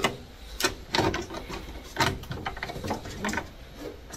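An irregular string of light plastic clicks and knocks as a plastic funnel is lifted out of the laser cutter's coolant reservoir fill port and the reservoir's cap is fitted.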